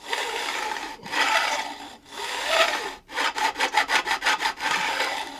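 Hand file dressing the ends of newly installed frets flush along the edge of a guitar neck, metal being taken down. There are three long strokes of about a second each, then a quick run of short strokes, then another long stroke.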